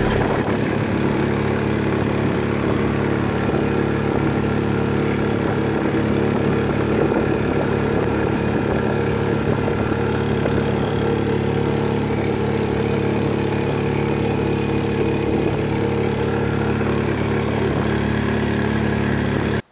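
Outboard motor of a small boat running at a steady speed while underway, a constant engine hum that cuts off suddenly at the end.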